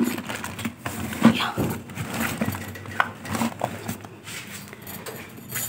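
Rustling and knocking of clothes and items being moved around on wardrobe shelves, a string of short irregular clicks and bumps with a few brief squeaks.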